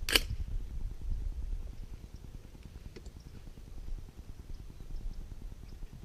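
A .300 Blackout AR-type rifle firing a single unsuppressed shot just after the start: one sharp crack. Low wind rumble on the microphone follows.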